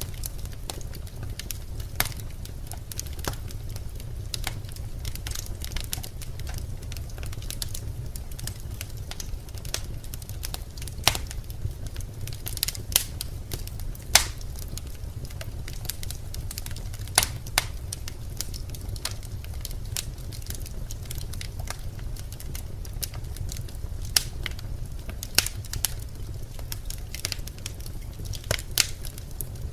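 Birch logs burning in a fireplace: a steady low rumble of flame under frequent irregular crackles and pops, a handful of them sharp and loud.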